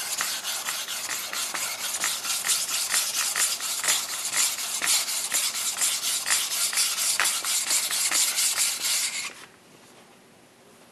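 A 500-grit whetstone being flattened by gritty back-and-forth rubbing strokes, about four a second. The strokes stop shortly before the end.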